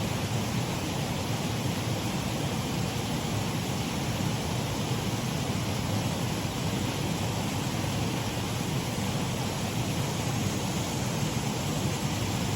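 Water running steadily over a shallow waterfall on a mill race stream, an even, unbroken rush of falling water.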